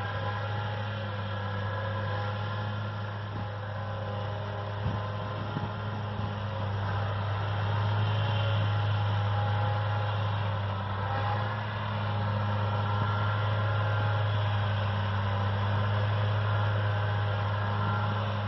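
Valtra N142 tractor running under load while driving a Claas Disco disc mower through grass: a steady low engine hum with a higher steady whine from the mower drive above it, somewhat louder in the second half.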